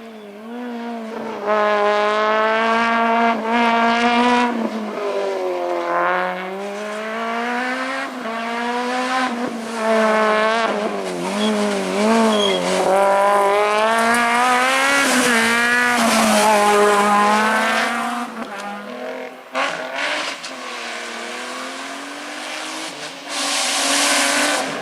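Rally car engine revving hard, its pitch climbing and dropping repeatedly as it changes gear and brakes between bursts of acceleration. It grows quieter after about eighteen seconds, and a burst of hiss comes near the end.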